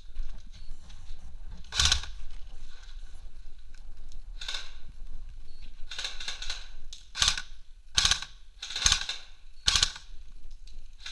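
Airsoft guns firing: sharp single shots and short bursts at irregular intervals, the first about two seconds in, coming more often in the second half, inside a bare concrete building.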